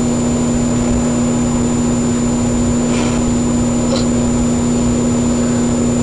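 Microwave oven running: a loud, steady hum with a constant low tone.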